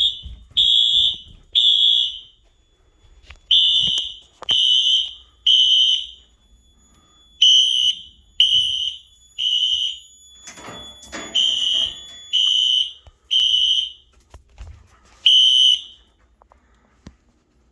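Fire alarm sounder beeping in the temporal-three evacuation pattern: high-pitched beeps in groups of three with a pause between groups, signalling the system is in alarm. It stops after one more beep about 16 seconds in.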